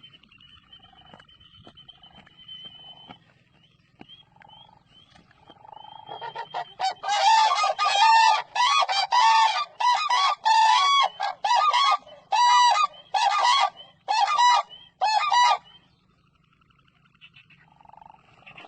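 Cranes calling: a loud run of repeated pitched calls, about two a second, starts about six seconds in and stops abruptly near the end.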